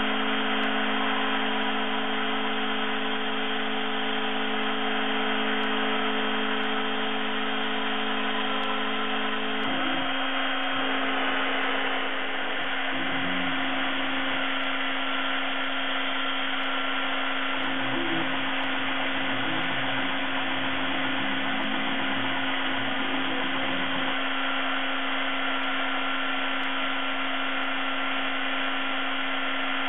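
Desktop CNC mill running, its spindle turning a 3 mm ball-nose cutter through polyurethane foam during roughing, a steady motor whine. The lower motor tones shift about ten seconds in, and again between about eighteen and twenty-four seconds, as the axes move.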